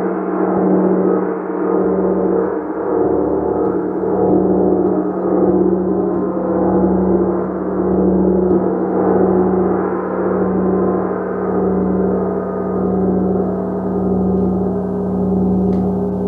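A gong played continuously in a sustained, many-toned drone, with a strong low tone underneath and slow swells in loudness roughly every two seconds.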